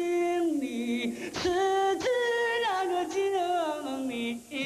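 A man singing unaccompanied in a loud, operatic style, the sign-off of a letter, "此致敬礼" (with best regards), repeated. Each phrase holds a long note and then steps down in pitch.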